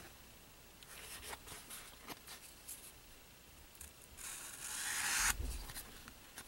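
Fine felt-tip fabric marker scratching along the grooves of a painted cardboard panel, faint, with small ticks as the piece is handled. About four seconds in comes a longer, louder stroke, ending in a soft bump.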